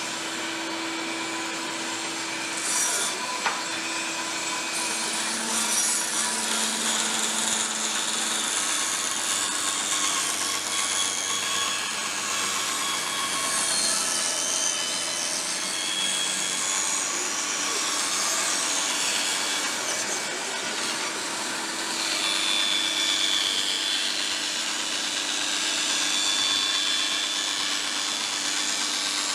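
Bandsaw running, its blade cutting a curved line through a sheet of plywood: a steady hiss of the cut over a low, even motor hum.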